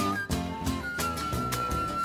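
Instrumental music with a steady beat. A single high note is held from about a second in.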